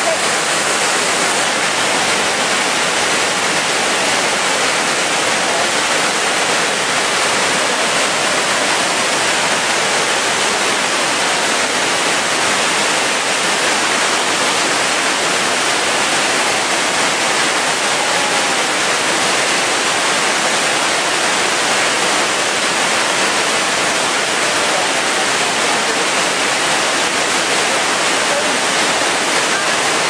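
Steady, loud rush of Hogenakkal Falls, a large waterfall on the Kaveri River, its water pouring over and crashing onto rock.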